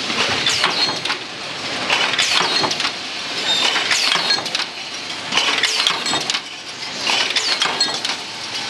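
Paint brush ferrule making machine running: rapid metallic clattering and clinking as the steel strip is stamped and formed, swelling and easing every second or two.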